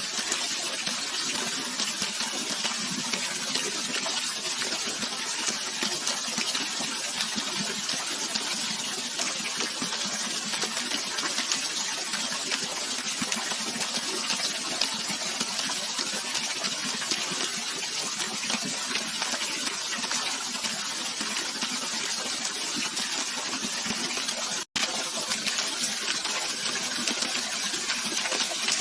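Steady rushing water with an even sound, broken by a momentary gap of silence about 25 seconds in.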